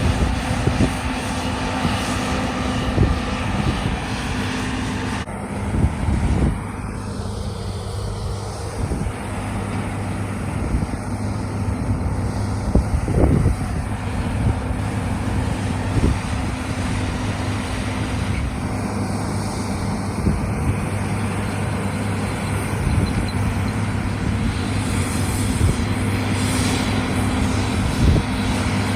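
John Deere S-series combine harvester running steadily, its diesel engine and threshing gear giving a constant hum, with wind buffeting the microphone.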